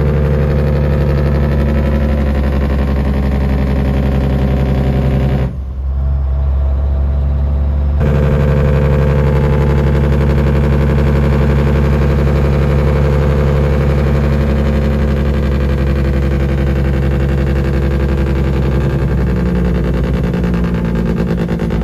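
Semi truck's diesel engine brake (Jake brake) running steadily on a downhill grade, heard from inside the cab, briefly changing pitch near the end.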